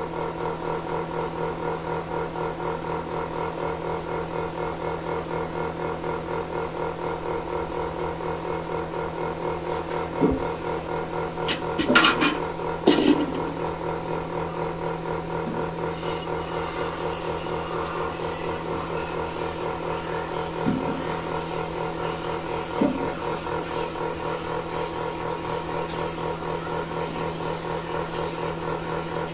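Milking machine running: a steady hum with the even, rapid pulsing of its pulsator. A few sharp clanks come in a cluster around the middle, and two lighter knocks follow later.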